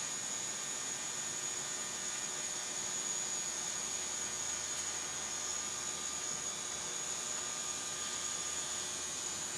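Steady background hiss and hum with a faint high-pitched whine. No distinct event is heard.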